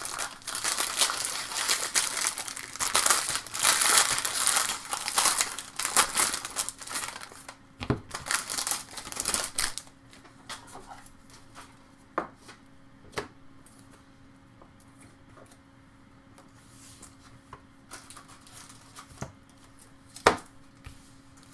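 A trading card pack's wrapper being torn open and crinkled for about ten seconds, then quieter handling of the cards with a few scattered light taps and one sharper tap near the end.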